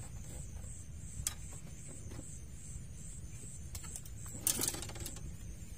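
Fishing rod and tackle being handled on a rack of rods: a single sharp click about a second in, then a short rustling clatter a little past four seconds. Under it run a steady low rumble and a faint, pulsing high buzz.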